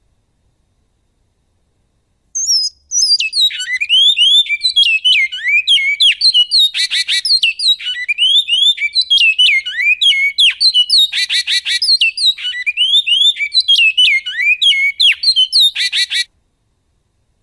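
A bicudo (great-billed seed-finch) singing one long 'canto goiano' song of fast, clear, falling notes with a few brief rasping trills. It starts about two seconds in and stops abruptly about a second before the end.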